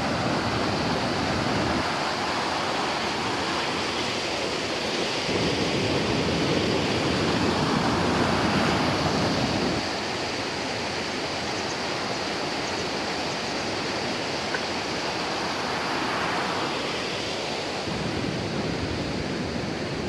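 Waterfall water cascading over rocks with a steady rushing noise. It is slightly louder in the first half and a little softer from about halfway through.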